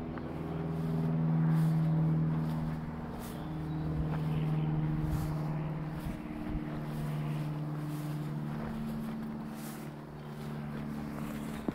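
A motor engine running with a steady droning hum, its pitch shifting slightly every few seconds.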